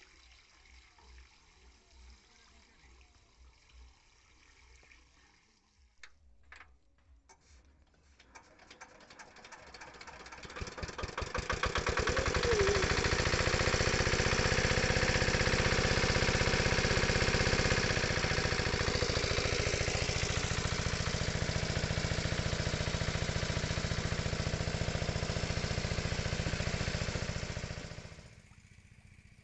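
Small engine-driven water pump starting: a few clicks, then the engine catches about eight seconds in, its firing beats quickening until it runs loud and steady. The sound cuts off suddenly near the end.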